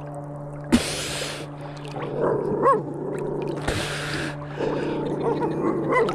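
A dog whining in short whimpers that rise and fall in pitch, over a steady low hum, with two brief bursts of hiss.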